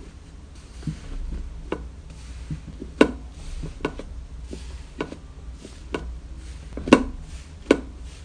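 Slime being squeezed and poked by hand, giving irregular sharp clicks and pops, the loudest about three seconds in and twice near the end.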